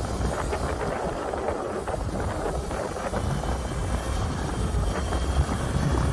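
Wind buffeting the microphone of a moving electric pit bike, a rough rumble, with a faint steady whine from the motor coming in about halfway through.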